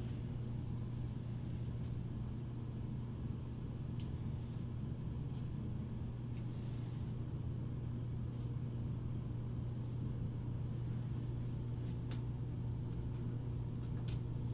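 Steady low machine hum with no change in level, and a few faint clicks scattered several seconds apart.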